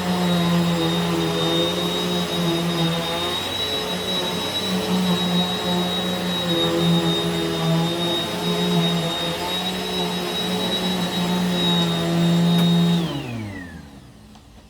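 WAP Power Speed 2-in-1 upright vacuum cleaner, a 2000 W corded model, running steadily with a high-pitched whine over its motor hum. About 13 seconds in it is switched off, and the motor winds down with a falling pitch.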